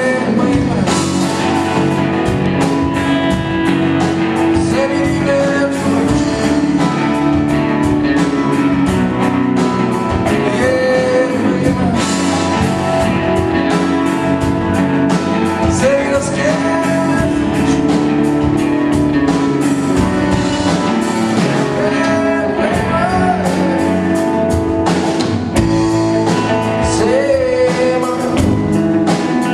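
Live rock band playing a song: acoustic and electric guitars, drum kit and keyboard, with a man singing.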